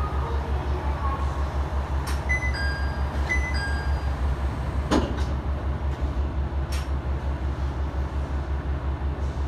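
Diesel railcar engine idling with a steady low throb while the train stands at the platform. A two-note descending chime sounds twice about two and three seconds in, then a sharp thump about five seconds in, with a fainter click a little later.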